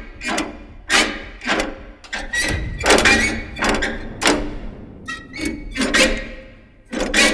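Irregular metallic clanks and knocks from rusty vintage farm machinery parts being handled, about two a second, each ringing briefly.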